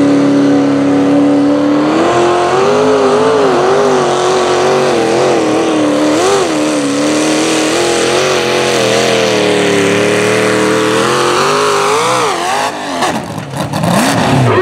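Small-block V8 engine of a mini modified pulling tractor, held at high revs at the line, then pitching up about two seconds in as it hooks and pulls the sled. The revs surge up and down under load before the engine falls away near the end as the pull finishes.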